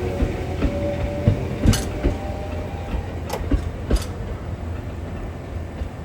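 Rail car rolling slowly along the track: a steady low rumble with scattered clicks and clacks from the wheels and joints, and a faint wheel squeal that fades in the first second or two.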